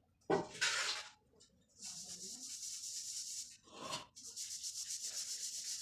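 Paintbrush scrubbing back and forth on paper in quick, short strokes, a fast scratchy rubbing, as black paint thinned with water is spread out for wash shading. A brief louder rustle comes just before the strokes start.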